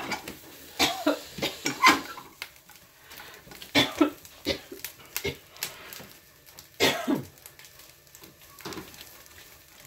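A person coughing and clearing their throat, with a few short vocal sounds, one with a falling pitch about seven seconds in. Light clicks of kitchen utensils come in between.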